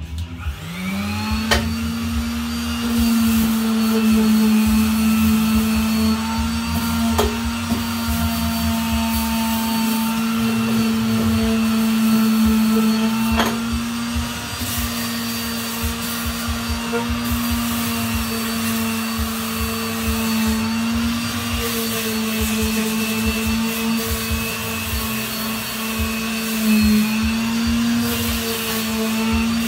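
Handheld electric sander spinning up with a rising whine, then running steadily on the rusty steel step rail, its pitch sagging briefly a few times under load.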